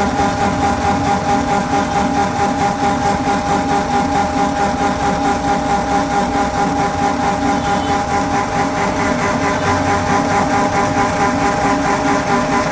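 Milling machine taking a heavy cut in metal: a steady, loud machine tone with an even, rapid pulse as the cutter teeth strike the work.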